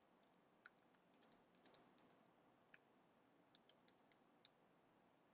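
Faint typing on a computer keyboard: short, sharp keystroke clicks in two irregular runs.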